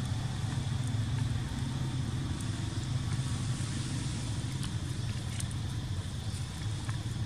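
Steady low hum of an idling engine, with a faint steady high-pitched whine above it and a few faint clicks.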